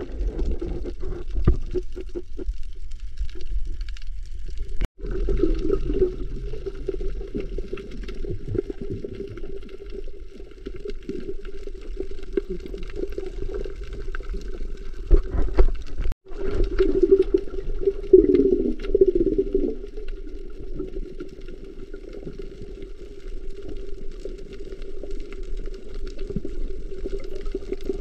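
Muffled underwater sound from a camera submerged beside a freediver: water noise with a steady low hum running through it. It drops out abruptly twice, about five seconds in and again about sixteen seconds in.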